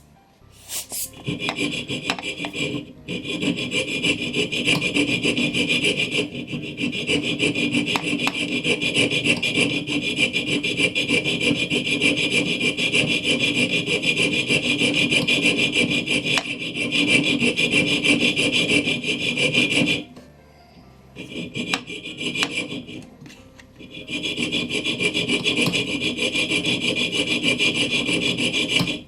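Fine-toothed piercing saw cutting through brass plate, a steady run of quick rasping strokes. It stops briefly about twenty seconds in and again a few seconds later, then resumes.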